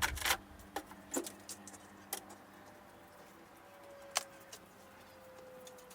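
Light knocks and clicks of household items being shifted, an electric fan and an ironing board, several sharp ones in the first two seconds and one more near the middle. A faint thin tone comes in a little past halfway and slides slightly lower in pitch for about three seconds.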